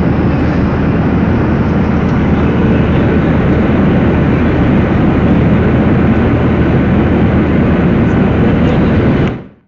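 Steady noise of an airliner in flight, engines and rushing air together, dominated by low-pitched rumble with a faint steady hum. It fades out quickly near the end.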